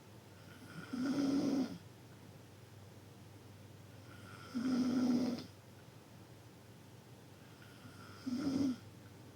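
Loud snoring from a sleeper: three snores about three and a half seconds apart, each under a second long with a steady buzzing pitch.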